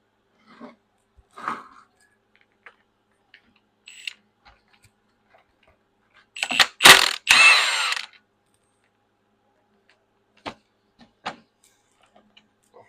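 Hand tools and metal parts being worked on a hydraulic control valve: scattered light clicks and taps, then about halfway through a couple of sharp metal clacks and a rasping burst lasting under a second, followed by a few more single clicks.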